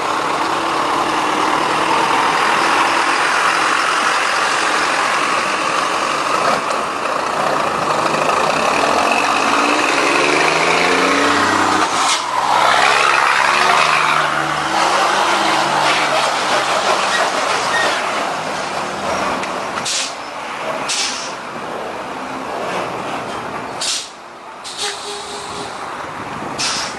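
Truck engine running under way, its note climbing and then falling around the middle, with a few short hisses in the last third.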